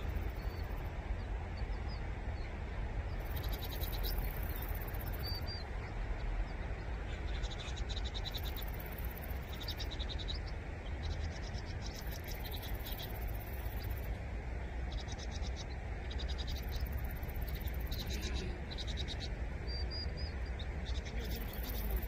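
Vinous-throated parrotbills chattering: bursts of rapid ticking notes, each about a second long, repeated every second or two from several seconds in.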